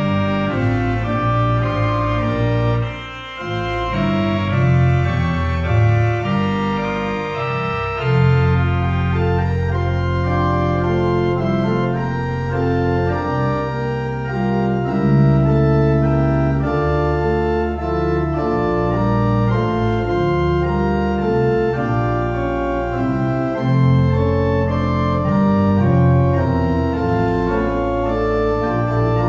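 Church organ playing a postlude: sustained, changing chords on the manuals over long-held pedal bass notes.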